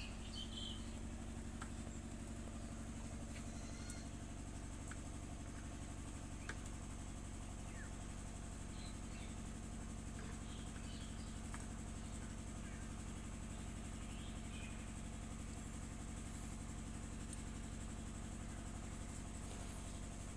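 A steady low mechanical hum, like an engine or motor running unseen, with faint bird chirps here and there.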